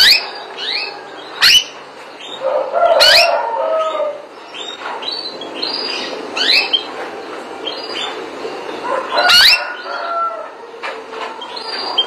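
Canary singing: a string of quick upward-sweeping whistled chirps, a few every second, with several much louder, sharper notes among them.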